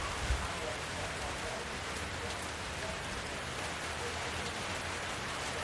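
Steady rain falling, an even hiss of drops on hard surfaces, with a brief low thump about a third of a second in.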